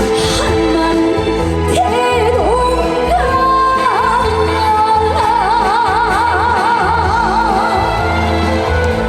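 Trot song played loud over a concert sound system, with a steady bass beat and a melody line that bends between notes, then holds a long note with wide vibrato from about five seconds in.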